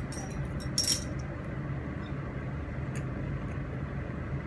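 A few light clinks against a plate while eating by hand, the clearest one about a second in with a short high ring, then fainter ticks, over a steady low hum.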